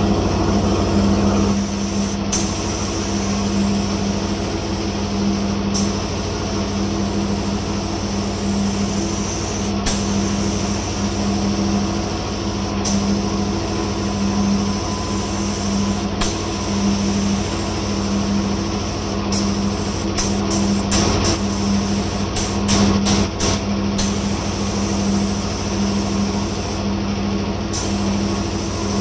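Compressed-air spray gun hissing steadily as it sprays a second coat of clear coating onto a headlight, over a steady low hum. The hiss breaks off very briefly several times, more often later on.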